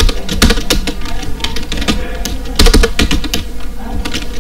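Typing on a computer keyboard: a run of irregular keystrokes, with a few louder key strikes about two and a half seconds in.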